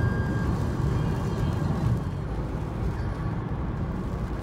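Steady low rumble of a car driving at highway speed, engine and tyre noise heard from inside the cabin.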